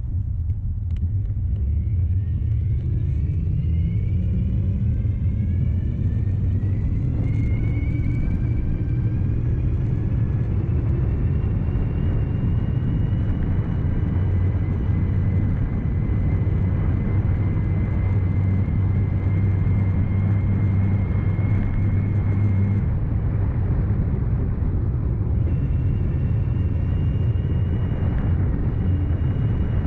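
CYC X1 Stealth Gen3 mid-drive e-bike motor whining under power, its pitch rising over the first several seconds as the bike picks up speed and then holding steady, over a steady low rumble. About two-thirds of the way through the whine fades out, and a few seconds later a higher-pitched whine comes in.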